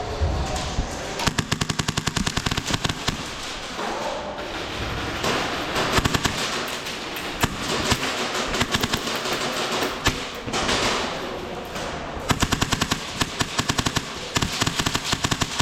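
Airsoft guns firing rapid full-auto bursts, about half a dozen strings of quick snapping shots separated by short pauses, some loud and close, others fainter.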